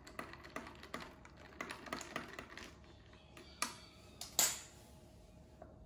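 Metal spoon stirring ice cubes in a glass: quick, irregular clinks and rattles, then two louder knocks about three and a half and four and a half seconds in.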